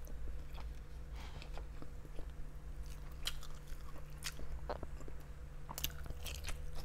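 Close-up chewing and mouth sounds of someone eating grilled pork barbecue: scattered soft smacks and clicks over a faint steady hum.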